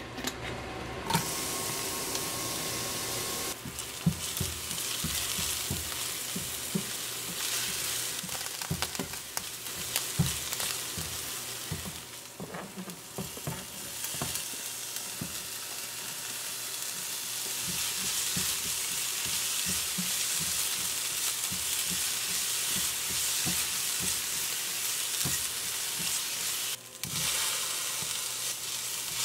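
Diced vegetables, bell peppers among them, sizzling in hot oil in a frying pan. The sizzling starts about a second in and runs on steadily while a spatula stirs, knocking and scraping against the pan.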